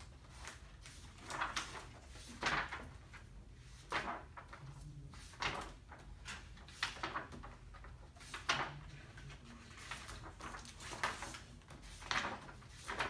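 Book pages being turned, a short papery rustle every second or so, about a dozen in all.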